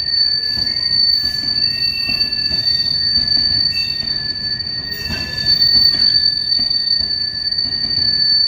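Tarpaulin-covered steel-coil freight wagons rolling slowly over the rails, their wheels giving a steady high-pitched squeal over a low rumble, with a few knocks about five seconds in.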